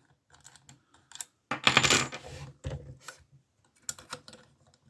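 Small metallic clicks and scraping as a tension tool is worked into the keyway of an old Burg lever padlock, with a longer rattle about a second and a half in.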